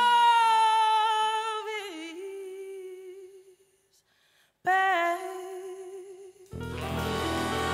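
A woman's singing voice holds a long unaccompanied note that wavers about two seconds in and fades away. After a moment of silence she sings a second, shorter note that trails off, and music comes in near the end.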